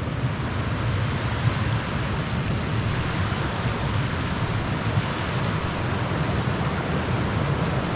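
Steady rushing of river rapids, white water running over rocks.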